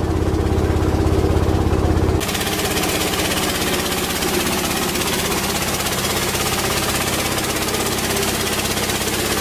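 A steady low machine hum that changes abruptly about two seconds in to the loud, fast, even chatter of a motor-driven coffee huller running as it hulls dried coffee beans.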